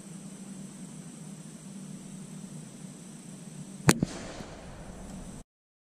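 A single .22 LR rifle shot with Eley CMP target ammunition, heard from beside the target: one sharp crack about four seconds in, with a weaker second crack just after it. A steady outdoor hiss lies under it, and the sound cuts off abruptly shortly before the end.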